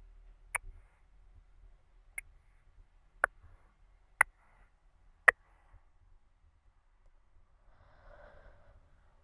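Close-miked ASMR mouth sounds: five sharp mouth clicks about a second apart, then a soft breath out near the end.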